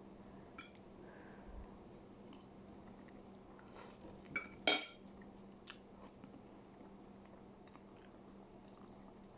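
Close-up chewing and biting of food, with a few soft clicks and one sharper click about halfway through, over a faint steady hum.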